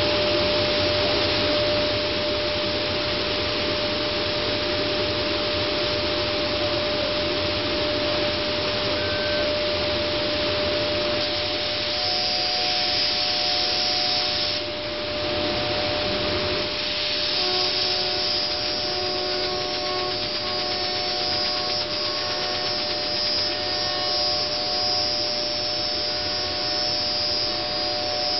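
Multicam 3000 Series CNC router running: a steady whine over a constant rushing noise, likely the 7.5 HP spindle and the dust collector. A second, higher whine joins about 11 seconds in.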